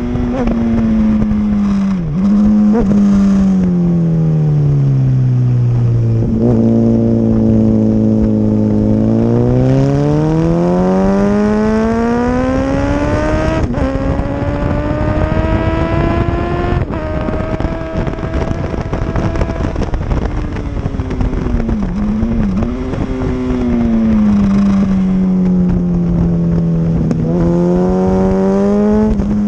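Motorcycle engine heard onboard at a race track: the revs fall away as it slows, hold low, then climb steadily through the gears with sudden drops at upshifts about 14 and 17 seconds in, before falling and rising again near the end. Wind rushes steadily over the microphone throughout.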